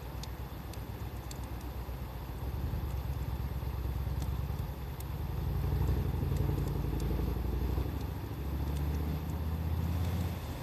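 The low, steady drone of a motor vehicle engine running, shifting in pitch about eight seconds in, over a campfire crackling with sparse sharp pops.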